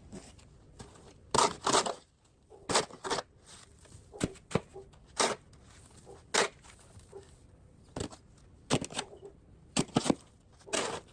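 About a dozen short, irregular crunches and scrapes in snow and melting salt, two of them longer, about a second in and near the end.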